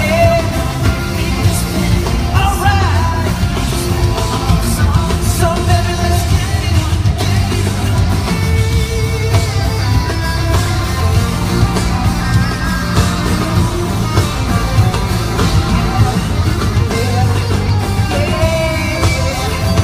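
Loud live pop music with a strong, steady beat and a male voice singing over it, heard in an arena sound check.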